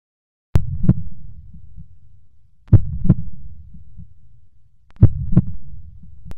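Heartbeat sound effect: three slow double beats, lub-dub, with a low rumble between them.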